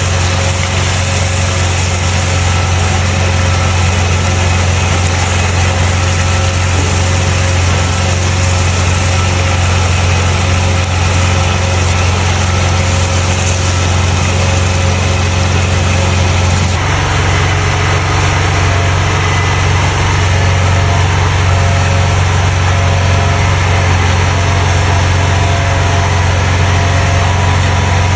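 A vehicle engine running steadily with a strong low hum. The sound changes abruptly about 17 seconds in.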